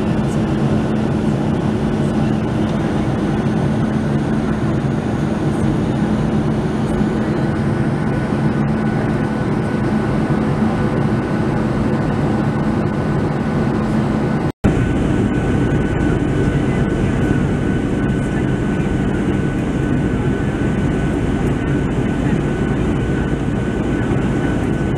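Cabin noise of a Boeing 737-700 in flight: its CFM56 turbofan engines and the airflow make a steady, loud rush. The sound drops out for an instant about halfway through at a cut, then carries on with a thin high whine standing out.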